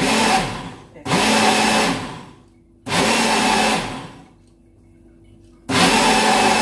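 Small personal bullet-style blender run in four short pulses of about a second each, the motor whining up at the start of each one. It is blending a juice drink until it is smooth, with no particles left.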